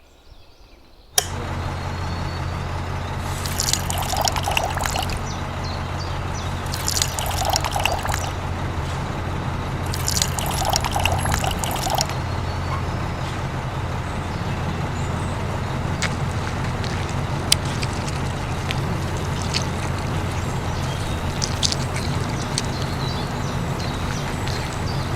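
Small electric motor of a DIY model construction machine humming steadily from about a second in, with three short spells of pouring or scraping and a few light clicks.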